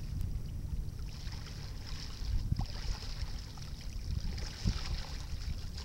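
Wind rumbling on the microphone over water lapping and splashing lightly against a kayak's hull, with scattered small ticks.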